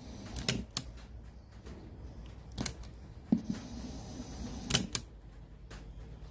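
A handful of sharp mechanical clicks and light knocks, about five spread over several seconds, from hands working on a portable cassette radio, with a faint low hum underneath.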